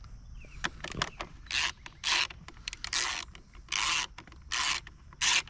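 A hand ratchet wrench worked in short back-and-forth strokes, about six rasping runs of ratchet clicks, typical of loosening the seat bolts on a dirt bike. A few separate metallic clicks come first.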